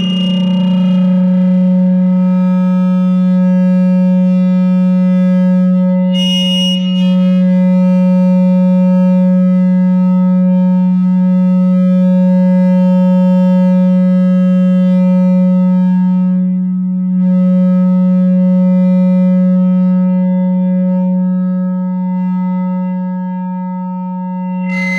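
No-input mixer feedback drone, a two-channel mixer fed back through an effect pedal: one loud, steady low tone with a stack of fainter steady tones above it. A short burst of noise cuts in about six seconds in.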